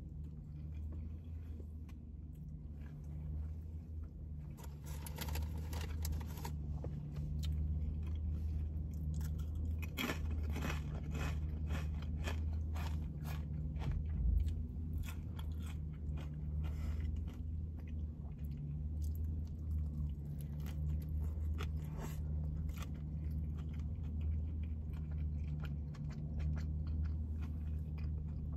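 Close-miked chewing and biting of a Philly cheesesteak on a toasted roll: wet chewing with crunching of the crust, in irregular crackly bursts. A steady low hum runs underneath.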